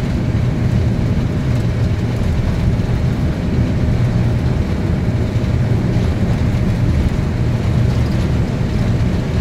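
Steady low rumble of a Boeing 747's engines and airframe, heard inside the cockpit as the jet rolls onto the runway and lines up.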